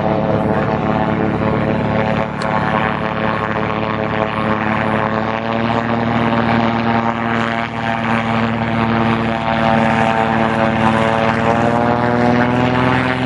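Floatplane's propeller engine running steadily as the plane moves on the water, a loud drone that rises slightly in pitch about halfway through.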